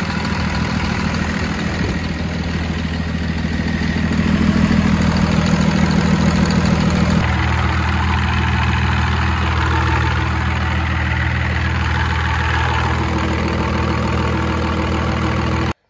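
Cummins inline-six turbodiesel idling steadily. The engine has a blown head gasket that is leaking oil and coolant.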